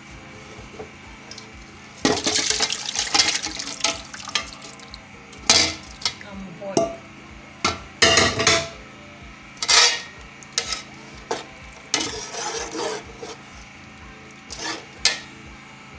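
A metal spoon stirring, scraping and clinking in a cooking pot as stock and pieces of goat meat are added to melted ogbono, with wet, splashy sounds. It comes in irregular bursts and sharp clicks, starting about two seconds in.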